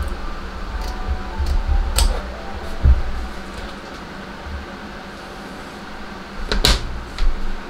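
Small sewing scissors snipping fabric, with soft handling thumps on the cutting mat, over a steady background hum. A sharp clack of something set down comes near the end and is the loudest sound.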